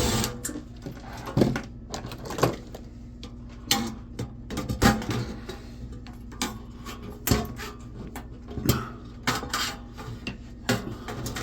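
Irregular metallic clanks, clicks and knocks of sheet-metal computer case parts and screws being handled and pulled apart during disassembly.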